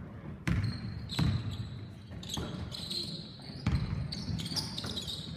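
Basketball bouncing on a hardwood gym floor: a few separate hard thuds from the dribble, with the echo of a large gym.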